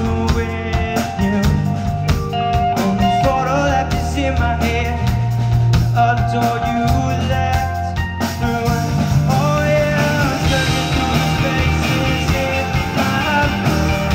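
A rock band playing live: drum kit, bass guitar and electric guitars, with a melody line gliding between notes over a steady bass line.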